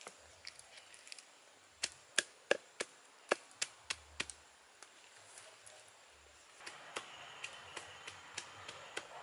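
Sharp knocks of a bamboo stick striking leaves on a stone, about three a second for a couple of seconds, as the leaves are pounded. About two-thirds of the way in, a wood fire takes over with a steady hiss and scattered small crackles.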